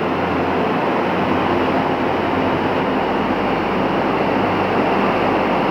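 Waterfall of the Yellowstone River's canyon: a loud, steady rush of falling water.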